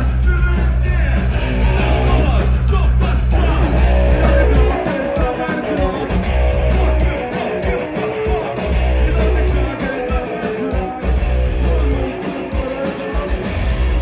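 Live rock band playing loud, with electric guitar, drums, bass and singing. The heavy low end cuts out about five seconds in and then comes back in stretches.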